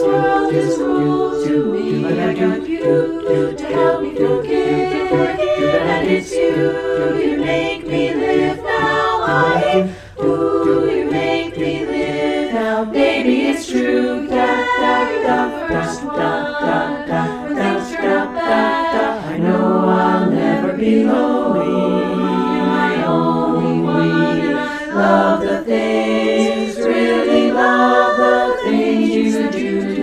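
Women's a cappella chorus singing in four-part harmony, the voices recorded separately and mixed together as a virtual choir.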